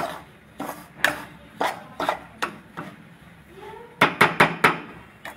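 Spatula scraping and knocking against a pan while stirring semolina roasting in ghee. There is a stroke about every half second, then a quick run of about five knocks near the end.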